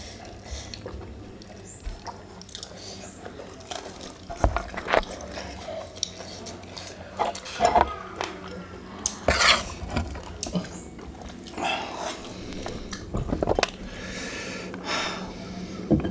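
Close-miked eating sounds: chewing and mouthing of food, with scattered short clicks and clinks of chopsticks and utensils against a metal tray.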